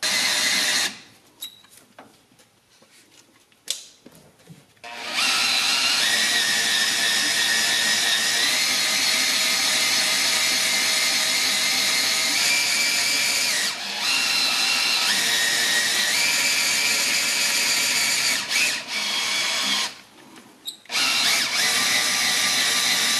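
Power drill running with a steady whine, spinning the external dry-sump oil pump by its pulley to pump the old oil out of the system. It stops about a second in for some four seconds, and again for about a second near the end.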